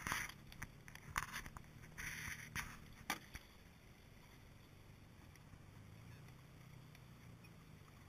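Footsteps on snow-covered rocks: a few irregular crunches in the first three seconds or so, then only a faint, steady low hum.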